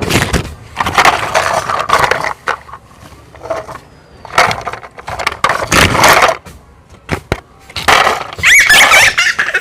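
Rough clattering and crashing noises in bursts of up to a second or so, with a few sharp clicks between them and a pitched, wavering sound near the end.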